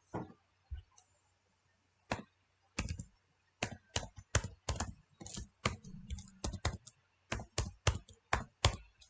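Computer keyboard typing: a run of separate keystrokes at an uneven pace as a password is entered, sparse at first and then quicker from about two seconds in.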